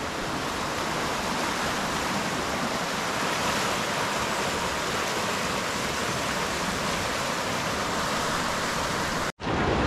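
Steady rush of river rapids, water running over rocks in an even hiss. It cuts out for an instant near the end.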